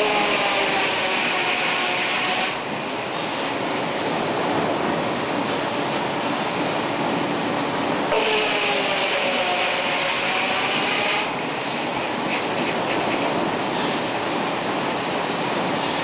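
Circular sawmill blade ripping through a log on the carriage, twice: each cut is a hissing rasp lasting about three seconds. The blade's whine sags in pitch while it is in the wood and climbs back after, over the steady din of the running mill.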